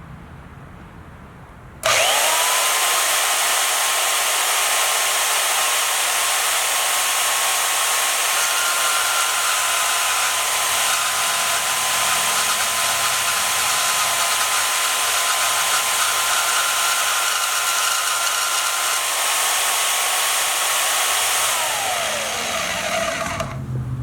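Bauer portable band saw switched on about two seconds in, its motor whining up to speed and running steadily for about twenty seconds, with a second higher tone joining through the middle stretch. Near the end it is switched off and the whine falls away as it winds down.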